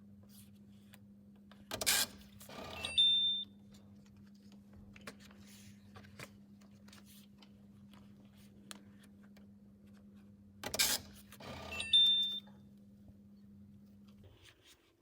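Railway-station ticket validator reading a ticket twice, about nine seconds apart. Each time there is a sharp click, then a short mechanical rasp and a brief high electronic beep. A steady low hum cuts off near the end.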